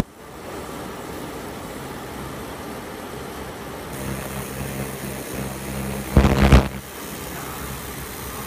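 100 W fiber laser cutting machine running while it cuts thin metal sheet: a steady hum, with a short loud burst of noise about six seconds in.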